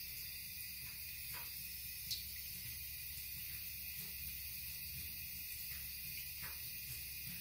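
Thin stream of tap water running into a bathtub, a steady faint hiss. A domestic cat laps at the stream, giving a few faint clicks; the sharpest comes about two seconds in.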